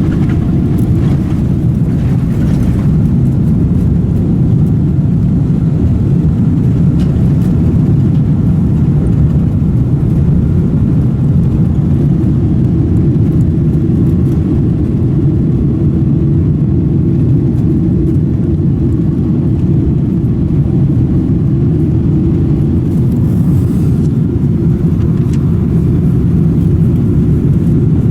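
Boeing 777-300ER's GE90-115B turbofan engines running, heard inside the cabin as a loud, steady low rumble.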